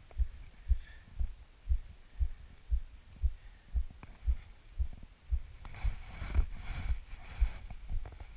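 Mountain bike ride on a dirt trail heard through an action camera: steady low thumping about twice a second. A short rush of crunching tyre and trail noise comes in the middle.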